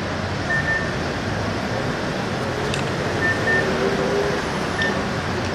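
Steady street noise of traffic and running engines, with a few short high beeps.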